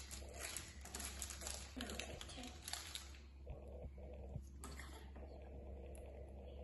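Crinkling and tearing of a small plastic Haribo sweet packet being opened by hand, dense for the first three seconds and then dropping to a few faint rustles and clicks.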